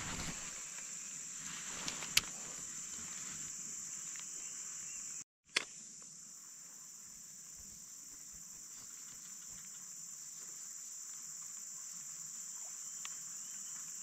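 Steady high-pitched drone of a chorus of insects, such as crickets or cicadas, in tropical forest, with a few faint clicks. The sound drops out briefly about five seconds in, followed by one sharp click.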